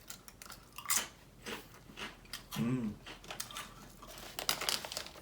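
Cheddar sour cream potato chips crunching as they are bitten and chewed, in a series of sharp crisp crunches, with a short hummed vocal sound about two and a half seconds in.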